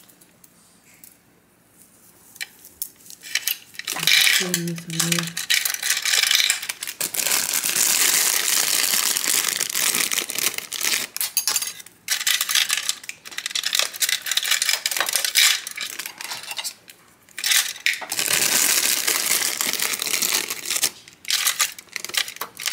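Small plastic items rattling and clattering as they are handled and sorted into a clear acrylic organizer. It starts about four seconds in and runs almost continuously with a few short pauses.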